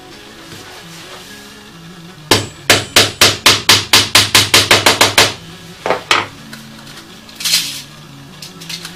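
Small hammer tapping on a brass cut-out motif lying on a wooden board: a quick run of about a dozen light strikes, about four a second, then two more a moment later.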